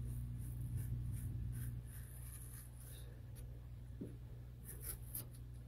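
Razor blade drawn along the edge of a steel sheet, slicing off the overhanging adhesive diffraction-grating film: a faint scratching with a few small ticks, over a low steady hum.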